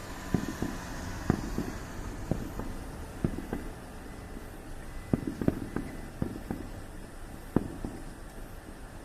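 Aerial fireworks bursting, an irregular series of sharp bangs, some in quick clusters of two or three.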